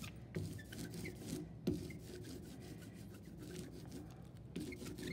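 Ink brayer rolling back and forth over an inked styrofoam printing plate: a quiet, sticky crackling rub from the tacky ink under the roller, with a few soft knocks as the strokes change.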